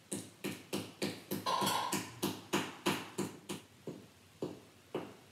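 A hand paddle patting the top edge of a leather-hard clay slab box, a quick run of sharp taps about three or four a second that slows near the end. The paddling is setting a 45-degree angle into the lid's rim and helps attach the top to the box.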